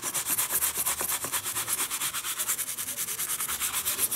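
Cloth rubbed fast back and forth over the leather of a Wilson A2000 baseball glove's index finger, scrubbing dirt off it. The strokes come as a quick, even scratching rhythm, several a second.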